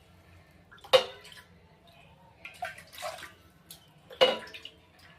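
Water poured from glasses into a cooking pot in a few short splashes, the loudest about a second in and about four seconds in.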